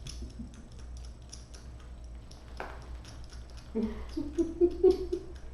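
A bottle-fed kitten suckling on a feeding bottle's nipple: quick, soft, wet clicks repeating several times a second. A single soft knock comes about two and a half seconds in, and a short low voice-like hum comes about four seconds in.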